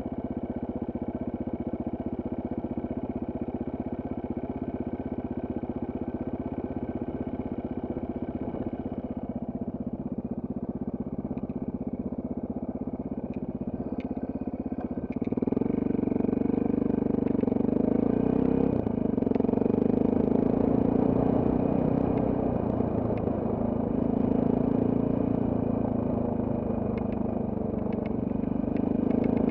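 Off-road trail motorcycle engine running steadily, then clearly louder about halfway through as the bike is ridden on, with a few light knocks and clatters over the engine.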